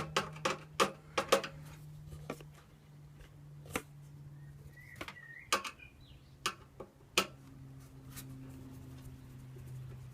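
Sharp, irregular clicks and knocks of metal computer parts being handled and pried at while taking apart an old desktop computer: a quick cluster in the first second and a half, then single knocks every second or so. A steady low hum runs underneath.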